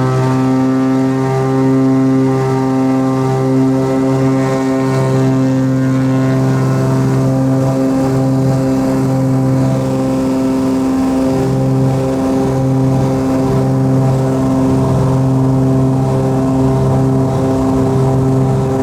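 Cessna 340A's twin turbocharged Continental TSIO-520 engines and propellers running at high, steady power: a deep, even propeller drone that swells and fades slowly as the two engines beat against each other.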